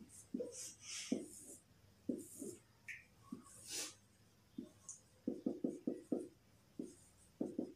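Whiteboard marker squeaking and scratching on the board in short strokes as lines are drawn and characters written, with a quick run of squeaks about five seconds in.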